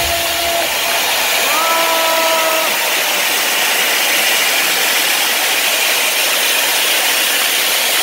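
Concert crowd cheering and applauding in a loud, steady roar as the song's last held note and backing music fade out at the start. A voice holds a single note briefly about two seconds in.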